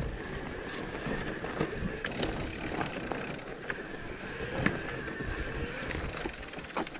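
Mountain bike ridden over a rough trail: steady tyre noise with frequent short rattles and knocks from the bike over bumps.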